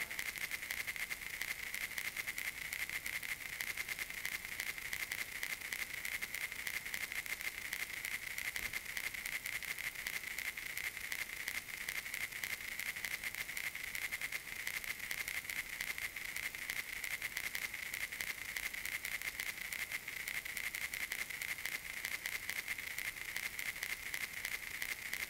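Steady hiss with fast, continuous crackle and a high hissy edge: the surface noise of an old film soundtrack with nothing recorded on it.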